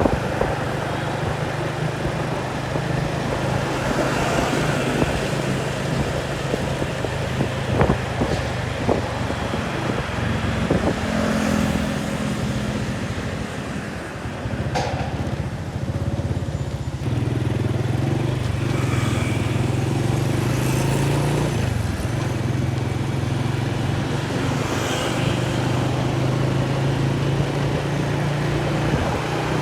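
An engine running steadily with a low hum. It eases off around the middle and comes back stronger about 17 seconds in.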